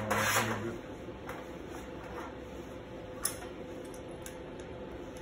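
MIG welder: a brief crackling arc at the start, then scattered sharp clicks and ticks, one louder about three seconds in, over a steady hum.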